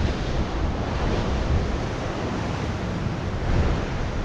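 Sea surf rushing and breaking against the rocks, a steady roar, with wind buffeting the microphone.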